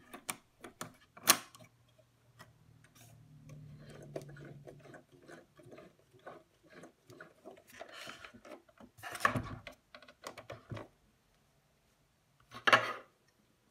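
Bernina 1230 sewing machine's hook and race: a sharp metal click as the hook race cover is latched, then light ticking and clicking as the mechanism is turned by hand to check that the reinstalled hook stays seated. A few louder clatters follow, with one more near the end.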